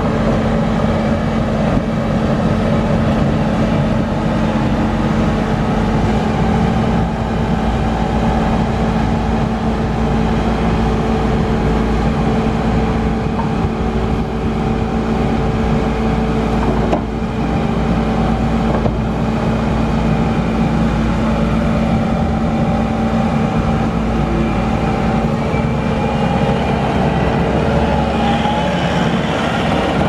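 The 2018 Bobcat T870 tracked skid steer's 100 hp four-cylinder Kubota diesel engine running steadily, with small shifts in its tone in the second half.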